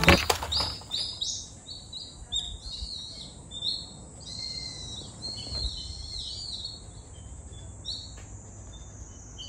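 Birds chirping: a run of short, high chirps, several a second at first and thinning out toward the end.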